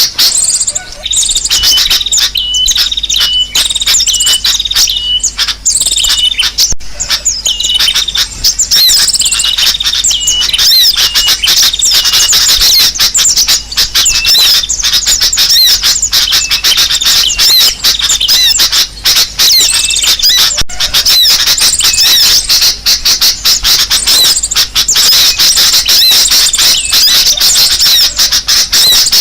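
A dense, loud chorus of many small birds chirping and chattering at once, the kind of noisy, agitated flock recording used as a bird-trapping lure (suara pikat). For the first ten seconds one short hooked call repeats about every three-quarters of a second over the rest.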